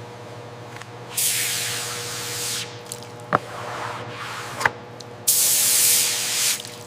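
Paint spray gun hissing in two bursts of about a second and a half each, applying a base coat, with two sharp clicks between the bursts.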